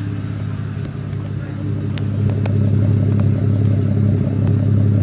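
2010 Chevrolet Camaro engine idling steadily at high mileage, running a little loud with a noise the owner can't identify. It gets somewhat louder about two seconds in, with a few faint ticks.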